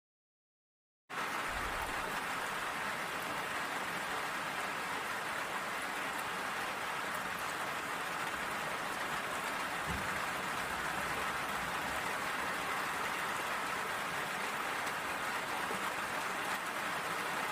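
Steady hiss of falling rain, starting suddenly about a second in, with a faint low thump near the middle.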